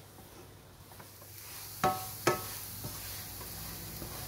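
Wooden spatula stirring dry-roasted moong dal in a nonstick frying pan. About two seconds in it knocks twice against the pan, half a second apart, each knock ringing briefly, over a faint hiss.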